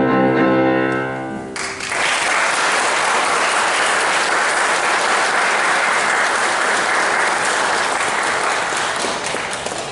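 A grand piano's final chord rings for about a second and a half, then an audience breaks into steady applause that fades near the end.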